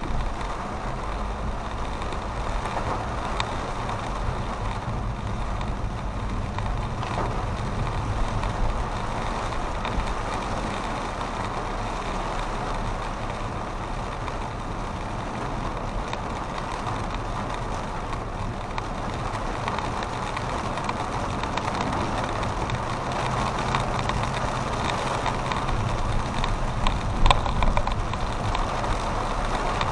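Vehicle running steadily: a low engine hum under an even wash of road noise, with a few brief knocks near the end.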